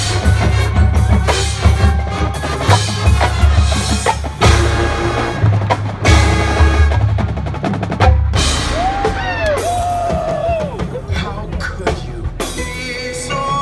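A marching band playing loudly, driven by heavy bass drum and drumline hits under sustained pitched notes, with a short wavering tone near the middle.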